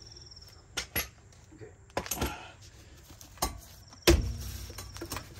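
A few light metallic clicks and clinks, then a heavy thump about four seconds in with a ringing metallic tone after it, and another thump at the end: the car's wheel being kicked to break it loose from the hub.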